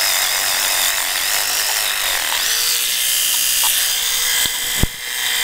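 Battery-powered electric toothbrush buzzing steadily with a high whine as its head scrubs soil off a dug-up brass medal; a lower steady hum joins about halfway through.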